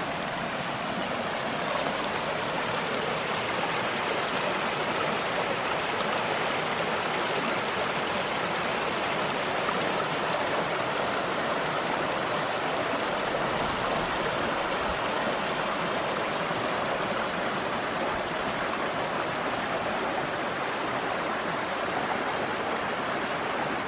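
Creek rushing steadily, a constant even wash of flowing water; the creek is running high from recent rain.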